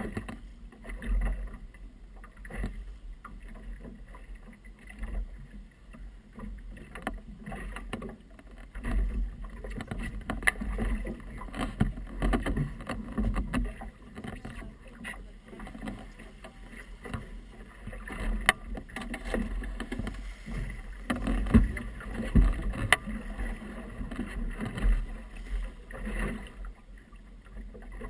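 Choppy water slapping and splashing against a small motorboat's hull, with irregular knocks, over an uneven low rumble of wind buffeting the microphone.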